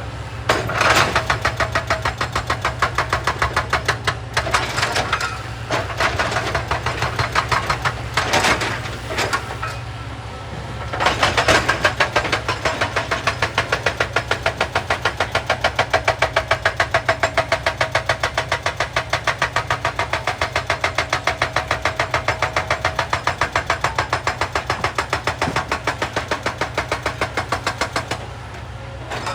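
Excavator's hydraulic rock breaker hammering rock in rapid, evenly spaced blows over the steady hum of the excavator's engine. Several short bursts of hammering come in the first ten seconds, then one long continuous run that stops shortly before the end.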